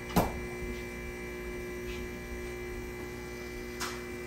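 Espresso machine's pump humming steadily while a shot of espresso runs. A sharp knock comes just after the start and a softer one near the end.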